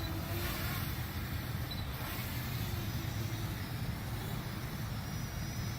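Steady low rumble of wind on the microphone, with the faint high whine of a Parrot Anafi quadcopter's propellers in flight.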